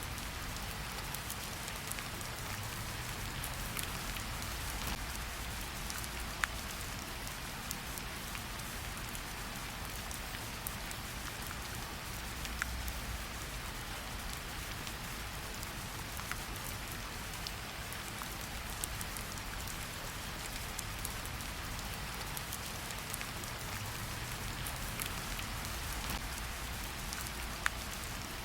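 Steady rain falling on a surface, with a few sharp pops from a crackling wood fire about 6, 12 and 27 seconds in.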